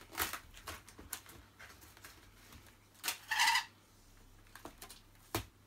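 Cardboard box handled with light rustles and taps, then a short rasping screech of packing tape pulled off a handheld tape gun about three seconds in, and one sharp snap near the end as the tape is cut.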